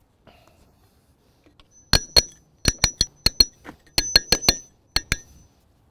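Hand hammer striking a small steel chisel held against a stone block: about a dozen sharp, ringing metal-on-metal taps in quick pairs and triples, starting about two seconds in. The chisel is chipping leftover stone out of the corners of a cavity being prepared for a mortar patch.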